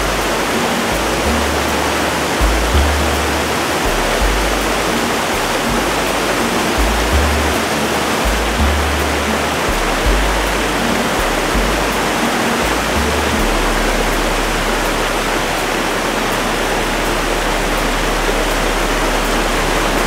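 Waterfalls cascading over many rocky tiers, a steady rush of water, with background music under it: low bass notes that change every second or so, settling on one long held note about two-thirds of the way through.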